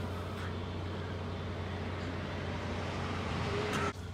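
A steady low mechanical hum with a rumbling noise over it; the rumble drops off abruptly near the end, leaving the hum.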